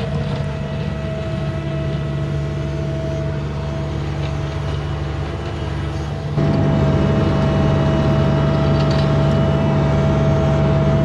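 Mini excavator's diesel engine running steadily with a constant hum and whine. It gets noticeably louder about six and a half seconds in, as it revs up while working.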